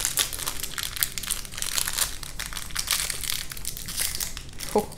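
Crinkly toy packaging being handled and opened by hand: a dense, irregular crackling and rustling.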